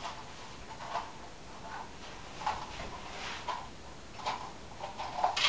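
Soft, irregular scrapes and ticks, a few a second, as the seeds and stringy pulp are dug out of an opened ripe squash. The strings cling to the flesh and have to be worked loose.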